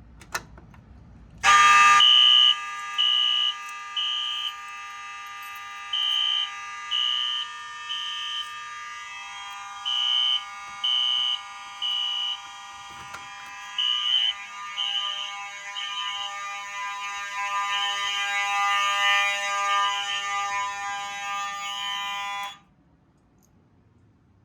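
Fire alarm horns sounding together after a brief click: a steady multi-tone horn under a higher horn pulsing in threes, the temporal-3 evacuation pattern. They start about a second and a half in and cut off suddenly near the end.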